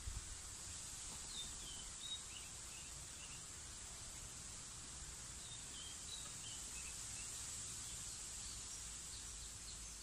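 Rural field ambience: a steady high insect drone with short bird chirps scattered through, over a low rumble that has a couple of soft bumps near the start.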